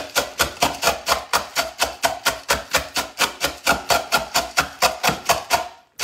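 Plunger-style manual food chopper pumped rapidly, about five strokes a second, its blades crunching dried stuffing cubes into breadcrumbs. The strokes stop just before the end.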